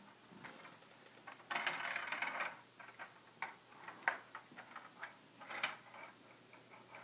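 Ball inside a Perplexus Epic maze sphere rolling and clicking along the plastic track as the sphere is tilted, in scattered ticks. A longer rattling run comes about a second and a half in, and there is a sharp click at about four seconds.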